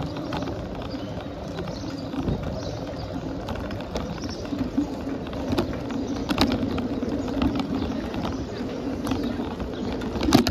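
Steady road and wind noise of a bicycle being ridden on a park road, with a continuous low hum and scattered clicks and knocks. A sharper knock comes near the end.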